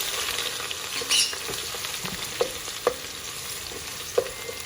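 Onions and ginger sizzling as they fry in hot oil, stirred in the pan, with a few sharp clicks of the spoon against the pan.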